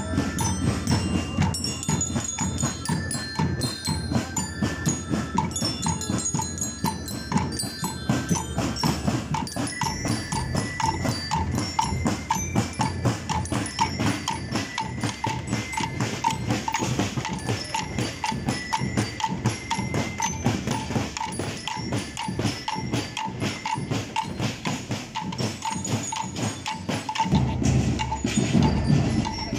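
Marching band playing a march: metal bell lyres ring out the melody over snare and bass drums beating a steady, fast rhythm. The drums get louder near the end.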